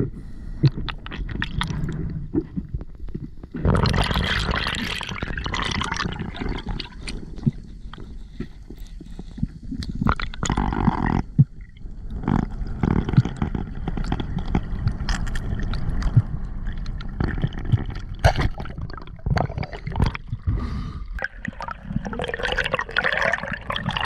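Underwater water noise as picked up by a submerged camera: continuous gurgling and sloshing with many short clicks and knocks, swelling in a few bursts of bubbling.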